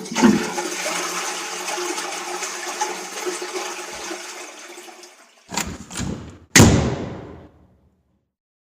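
Toilet flushing: a rush of water that starts suddenly and dies away over about five seconds, then two short sharp bursts about a second apart.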